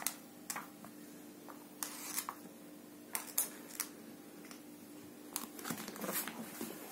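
A Sphynx cat playing with a cord toy on a carpet: scattered light taps and rustles, with a busier scuffle about five and a half seconds in as the cat rears up and bats at the string. A faint steady hum sits underneath.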